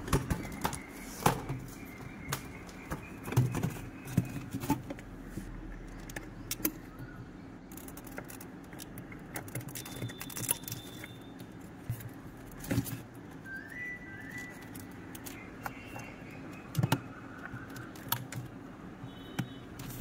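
Scattered clicks, knocks and rattles of a refrigerator's plastic evaporator duct cover being handled and pressed into place, over a low steady hum.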